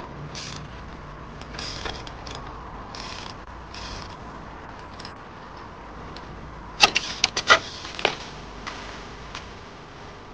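A trials bike being hopped and balanced on a wooden beam: short mechanical clicking and creaking rasps every second or so, then a quick cluster of sharp knocks about seven seconds in as the bike jumps and lands.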